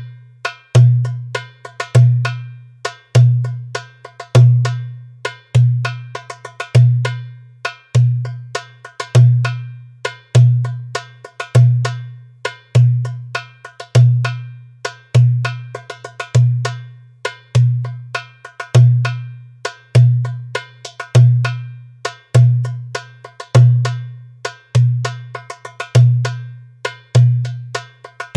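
Toumbeleki (Greek goblet drum) playing a looping tsifteteli rhythm at 100 bpm: a deep doum stroke about every 1.2 seconds, with quick, sharp, ringing tek strokes between them.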